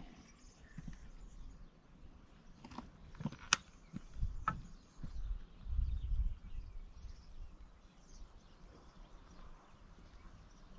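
Faint outdoor ambience with a few sharp clicks about three to four and a half seconds in, and low rumbles on the microphone about four and six seconds in.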